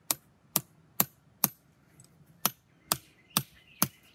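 Hammer blows on a steel concrete anchor and its cut-down steel sleeve, driving the anchor into a rammed earth wall. Eight sharp strikes about two a second, with a short pause midway.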